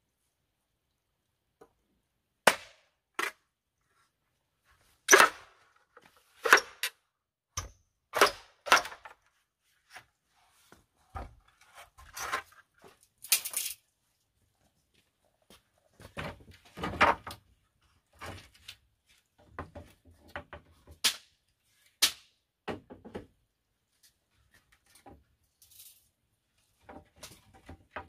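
Green bamboo being chopped and split: a series of sharp woody knocks and cracks at irregular intervals, about a dozen strikes, mostly a second or more apart.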